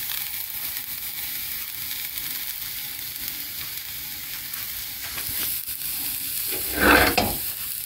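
Steady sizzling of crepe batter frying in a hot pan. About seven seconds in, a brief louder noise stands out over the sizzle.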